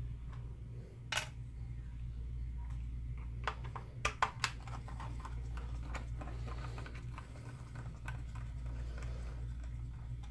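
Flathead screwdriver clicking and scraping against the screws of a plastic Trimline phone handset during disassembly: scattered small clicks, the loudest three close together about four seconds in, over a steady low hum.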